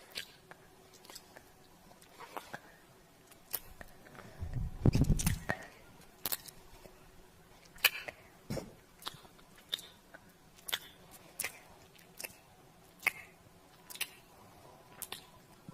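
Kiss sounds: a series of short, sharp lip smacks, roughly one a second, with a louder, deeper burst about five seconds in.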